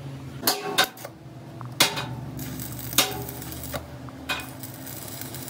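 Stick (arc) welding inside the bore of a truck drive-shaft universal-joint yoke: the electrode is struck against the metal several times, giving sharp metallic cracks and clicks with short bursts of crackle as the arc catches. A steady low hum runs underneath.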